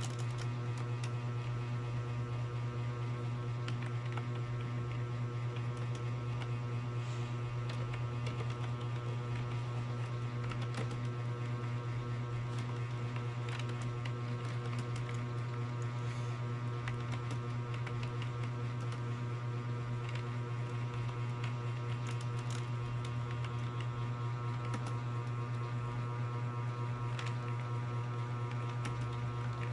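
Steady low electrical hum with a stack of steady overtones, with faint scattered clicks.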